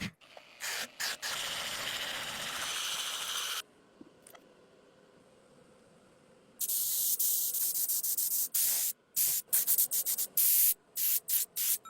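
Paint spraying: a hiss of spray for about three seconds, a pause, then another long hiss and a run of short quick bursts near the end.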